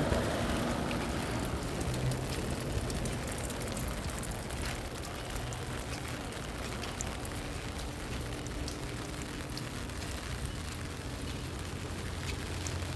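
Steady rain falling, a constant hiss with scattered drop ticks, over a low steady hum.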